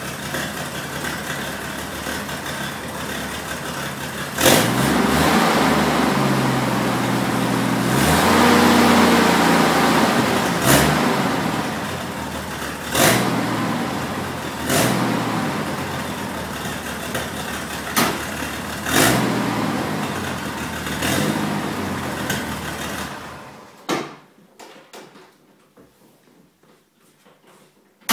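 Toyota FJ40 Land Cruiser's engine idling, then revved up and blipped sharply several times. It is switched off about 24 seconds in.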